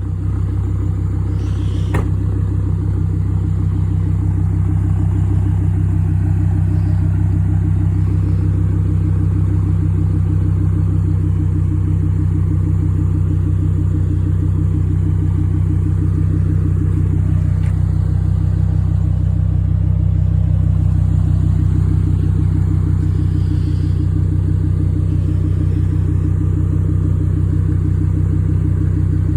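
Loud car engine idling steadily, its pitch holding even with no revving.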